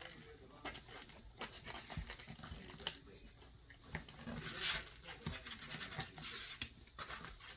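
Kittens' claws scrabbling on a cardboard box and paper mailers: faint scratching and scattered clicks, with a longer rustle about four and a half seconds in.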